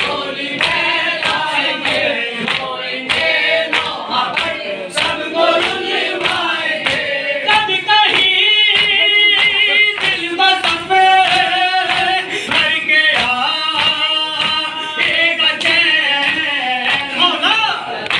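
A group of men chanting a noha, a Shia mourning lament, in unison into a microphone, with rhythmic chest-beating (matam) striking about twice a second to keep the beat.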